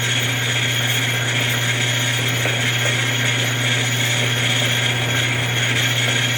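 Hardinge HLV lathe running steadily with a parting tool feeding into the spinning ring blank: a constant motor hum under a steady cutting hiss. The cut is interrupted where the parting tool breaks into the drilled and tapped bolt holes.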